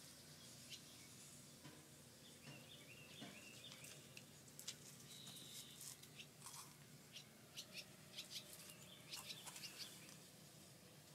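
Near silence: scattered faint clicks, with a few distant bird chirps a few seconds in.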